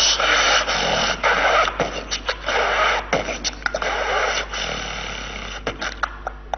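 Two beatboxers beatboxing into microphones: a dense run of mouth-made kick and snare clicks with hissy bursts, thinning out to a few scattered clicks near the end.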